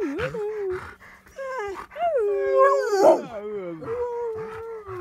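Dog whining and howling in a string of long drawn-out calls that slide up and down in pitch, the loudest about three seconds in falling sharply, the last one held.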